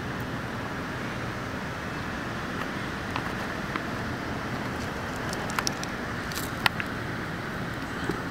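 Steady outdoor background rumble and hiss, with a few light clicks and scratches in the second half, the loudest one sharp tick about two-thirds through: an eastern box turtle's claws and shell on the paving slab.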